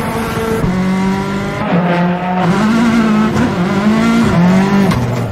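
Race car engine revving, its pitch holding steady and then rising and falling repeatedly as the throttle is worked.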